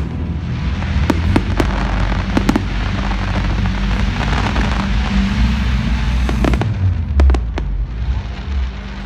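Fireworks going off: a dense crackle with sharp bangs, several close together about a second in and another cluster around six to seven seconds in, over a heavy low rumble. The crackle thins out near the end.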